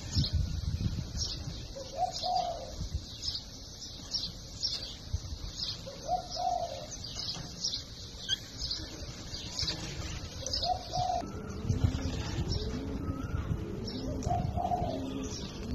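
Birds calling outdoors: a low call repeats about every four seconds over a steady run of short, high notes, about two a second. In the last few seconds more low calls join.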